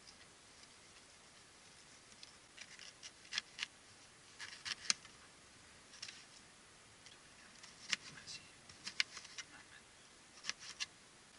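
Knife cutting red peppers on the plastic lid of a cool box: sharp, irregular taps and clicks of the blade in small clusters.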